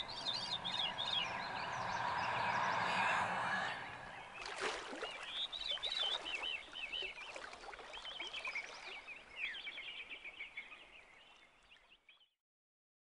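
Small birds chirping and warbling in quick high notes, over a steady background rush for the first few seconds, with one sharp knock a little before the middle. It fades out and stops about a second before the end.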